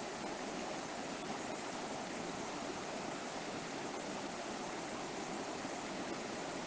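River water flowing steadily over rocks, a continuous even rush.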